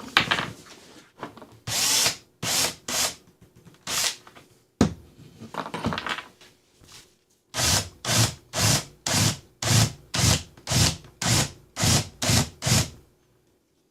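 Power drill run in short trigger bursts while drilling a hole: a few bursts at first, then a steady run of about two bursts a second that stops shortly before the end.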